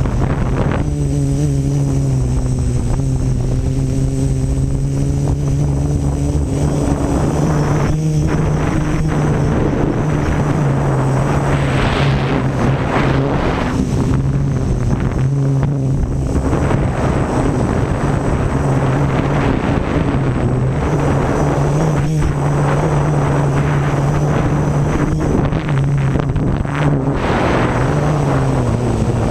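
Quadcopter's electric motors and propellers running close to the microphone: a steady buzzing hum whose pitch wavers slightly with throttle, with rushing air noise that swells about twelve seconds in and again near the end.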